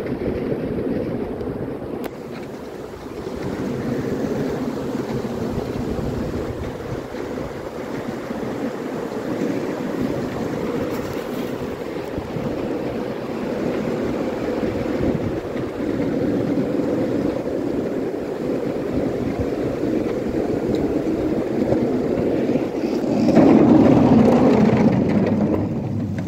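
Skateboard wheels rolling along a paved path, a steady rumble mixed with wind on the microphone, growing louder about three seconds before the end.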